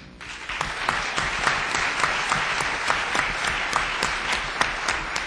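Audience applauding: dense, steady clapping that builds up over the first second.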